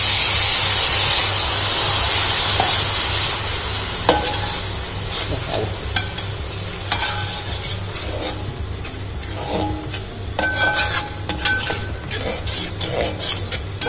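Water poured into hot frying curry masala in a wide metal pan hisses and sizzles loudly, dying down after about three or four seconds. Then a steel ladle stirs and scrapes through the masala, clinking against the pan, with the clinks coming more often near the end.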